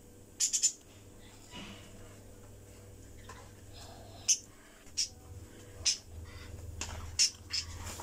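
Pet budgerigars chirping in short, sharp, high-pitched calls: a quick cluster about half a second in, then single chirps every second or so in the second half, over a low steady hum.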